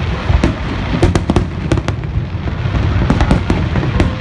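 Large aerial fireworks display going off in rapid succession: many sharp cracks and bangs, several a second, over a continuous low rumble of shell bursts.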